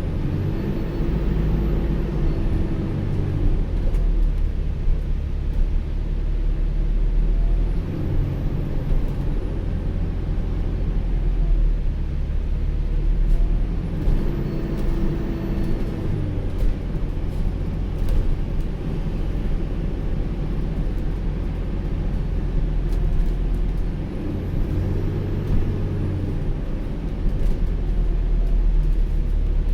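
ADL Enviro400H City hybrid double-decker bus on the move: a steady low rumble with a whine that rises and falls as the bus speeds up and slows, four times over. The vacuum-cleaner-like drive sound is what the uploader calls the bus's unusual "Hoover" sound.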